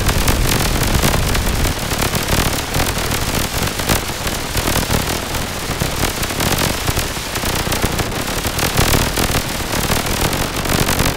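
Harsh electronic noise from a modular synthesizer: a dense crackling hiss packed with rapid pops, over a low rumble that thins out about two seconds in.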